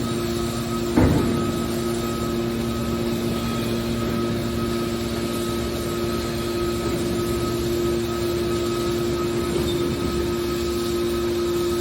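Hydraulic metal baler running: a steady machine hum from its motor and pump, with one sharp knock about a second in.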